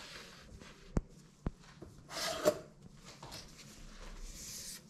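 Wooden bamboo cutting board handled on a kitchen countertop: two sharp knocks about half a second apart, then a short scraping rub of the board across the counter that ends in a louder knock. A faint rustle of gloved hands follows near the end.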